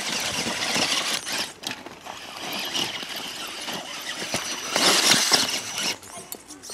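Radio-controlled trail truck's electric motor and gear drive whining and squealing as it crawls over the course, with scraping and a few short knocks from the truck on the obstacles. It gets louder for about a second around five seconds in.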